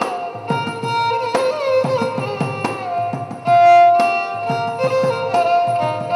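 Instrumental film-song melody on a violin in Carnatic style, sliding between notes, over steady hand-drum strokes; about three and a half seconds in it holds one long, loud note.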